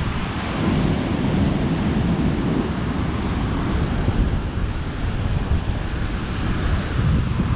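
Ocean surf breaking and washing up a beach, with wind buffeting the microphone in heavy low rumbles.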